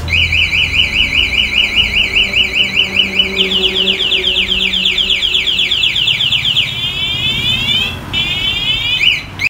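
Motorcycle anti-theft alarm siren going off after the locked bike is touched: a loud electronic siren cycling through tones, first a fast warble, then quick rising sweeps, then slower sweeps, with a brief break about eight seconds in.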